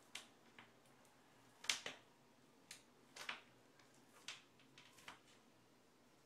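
Cat chewing a raw lamb neck, with sharp, irregular crunches and clicks of teeth on bone and gristle, about ten in all, the loudest a little under two seconds in.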